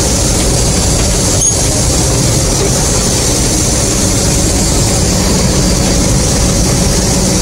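Bizon combine harvester's diesel engine and threshing machinery running steadily while the unloading auger empties grain into a trailer, heard from inside the cab.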